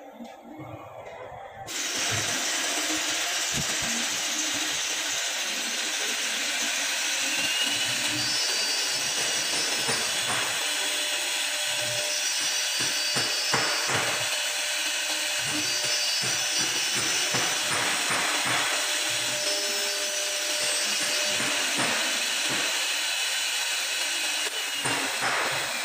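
CNC wood lathe machining a rotating wooden spindle blank. Its cutting motor comes in suddenly about two seconds in and runs steadily, with a thin high whine coming and going.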